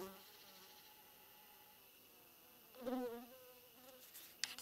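A flying insect buzzing close to the microphone: briefly at the start, then louder for under a second about three seconds in, its pitch wavering as it passes. A few faint clicks near the end.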